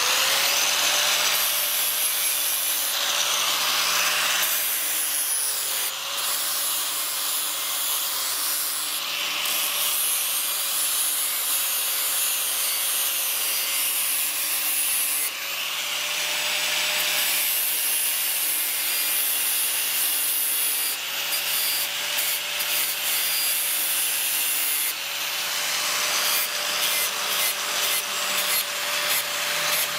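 Electric angle grinder with an abrasive disc grinding the steel of an old butcher's knife: a steady motor whine that wavers slightly in pitch, under the hiss of the disc on metal, dipping briefly several times.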